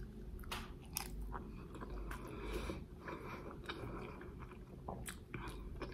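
Soft, faint chewing of a mouthful of rice with stewed aubergine and dried fish, with scattered small wet mouth clicks.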